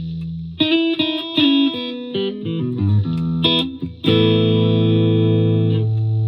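2006 Gibson Les Paul Classic electric guitar with a Seymour Duncan SH-1 humbucker, played on the clean channel of a Fender Mustang LT50 amp. A held chord dies away, then comes a quick run of picked single notes and chord fragments. About four seconds in, a new chord is struck and rings on.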